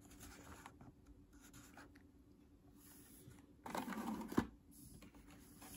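Diecast toy cars in cardboard-backed plastic blister packs being handled and moved over a table: faint rustling, then a louder rustle about four seconds in that ends in a sharp click.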